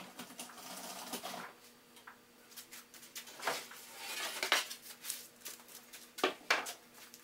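Pine boards being picked up and handled on a workbench: scattered wooden knocks and light clatter, with some rustling.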